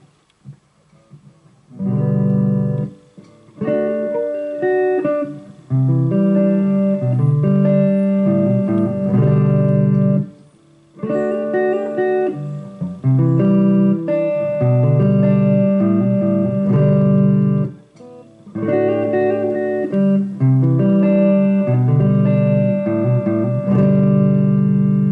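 Electric guitar played through an amplifier: chords and single-note lines in several phrases, with short breaks between them.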